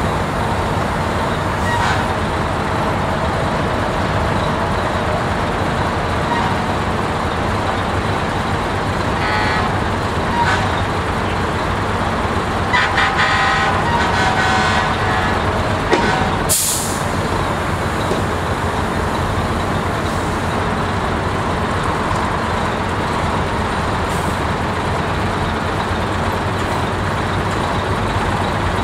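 Engines of a line of antique fire trucks running steadily at idle. A horn toots briefly about nine seconds in and again, longer and in quick pulses, around thirteen seconds. A short sharp hiss of air brakes comes about sixteen seconds in.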